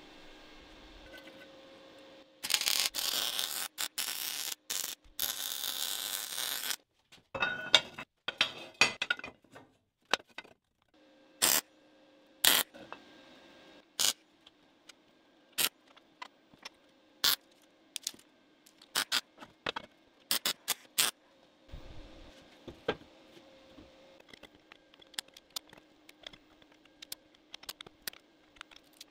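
MIG welder arc crackling on steel square tube: one continuous weld of about four seconds, then a shorter broken run, then a string of brief tack welds, each a short sharp crackle. A faint steady electrical hum sits in the gaps.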